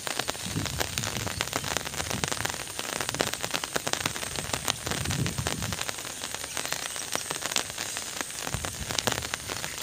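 Rain falling, with many sharp drop impacts close to the microphone over a steady hiss.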